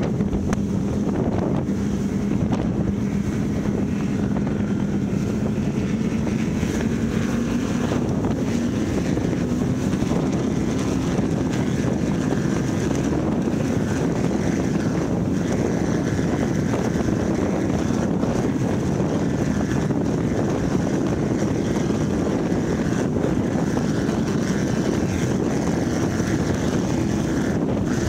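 Donzi ZR offshore powerboat's engines running hard at speed, with wind buffeting the microphone. The engine note climbs slowly over the first ten seconds or so, then holds steady.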